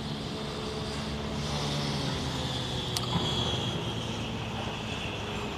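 A motor vehicle running close by, its steady engine hum swelling in the middle, over street noise, with one sharp click about three seconds in.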